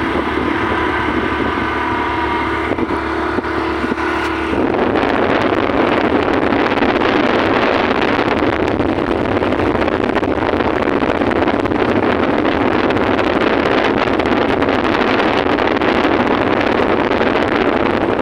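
Steady engine hum of a moving vehicle; about four and a half seconds in, loud wind rushing over the microphone takes over and covers it.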